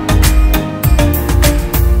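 Background music with a steady beat, a plucked guitar line and a strong bass.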